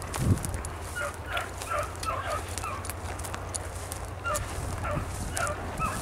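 Beagles baying: short, repeated calls about twice a second, some overlapping. Underneath are wind rumble on the microphone and dry grass crackling underfoot.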